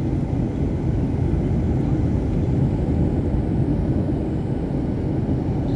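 Steady low rumble inside the cabin of a Boeing 737-800 airliner: engine and airflow noise that holds even throughout.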